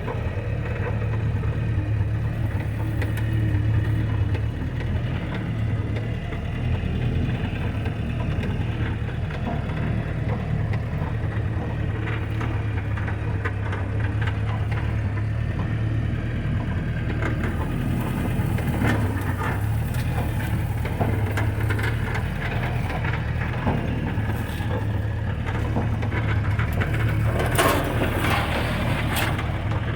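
1959 Jeep's engine running steadily at low speed off-road while sagebrush scrapes and snaps against the underside, with bursts of cracking and rattling in the second half.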